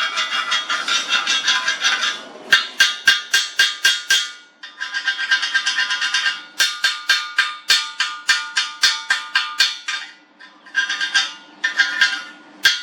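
Background music with a steady percussive beat over sustained tones, in phrases with short breaks.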